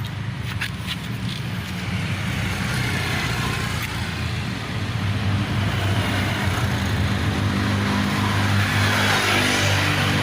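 Road traffic: a motor vehicle's engine running with a steady low hum, getting louder from about halfway through as it nears or revs.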